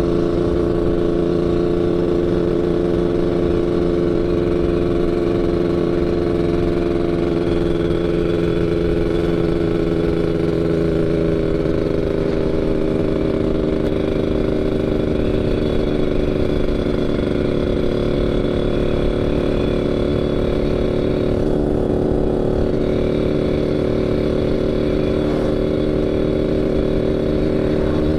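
Yamaha RX-King's 135 cc single-cylinder two-stroke engine running under steady throttle on the move, through an underslung exhaust set up for the Medan-style "ngorok" snoring growl. The pitch rises a little about twelve seconds in.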